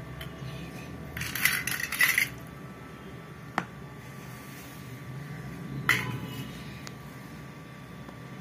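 Clinking and clattering of small hard objects: a short flurry about a second in, a single sharp click midway, and another clink near six seconds.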